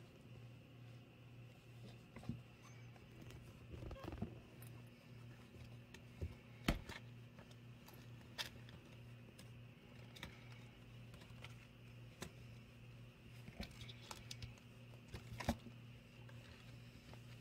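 Faint rustling and scrabbling of young kittens wrestling on a quilted fabric cushion, with scattered sharp clicks and taps, the loudest a little under seven seconds in and again about fifteen and a half seconds in. A steady low hum runs underneath.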